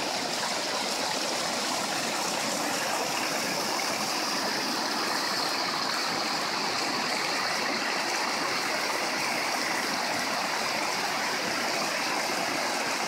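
River water pouring over a low concrete weir and churning below it: a steady, even rush of water.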